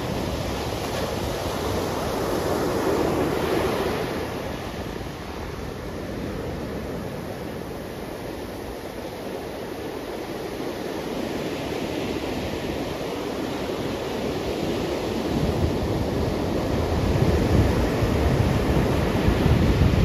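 Ocean surf breaking and washing up a sandy beach, a continuous wash that swells as each wave breaks, loudest near the end.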